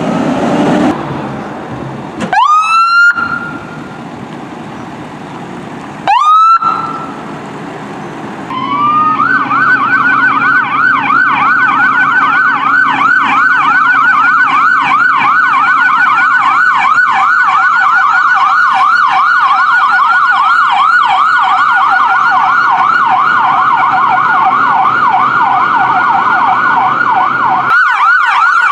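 Emergency vehicle's electronic siren: two short rising whoops, about two and six seconds in, then from about nine seconds a fast yelp warbling rapidly up and down in pitch, over a low vehicle rumble.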